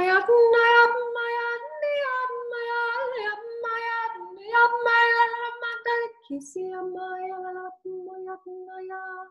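A woman singing wordless light-language syllables in long, high held notes. About six seconds in she drops to a lower note in shorter, broken phrases.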